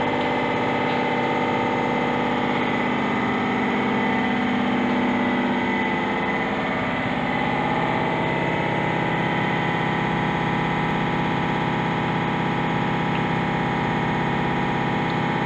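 Hydraulic power unit of a 600 kN computerised servo-controlled universal testing machine running with a steady, unchanging hum while the tensile specimen is preloaded.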